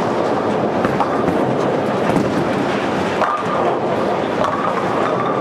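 Steady din of a busy bowling centre: bowling balls rolling and pins clattering on many lanes at once, with a few faint knocks in it.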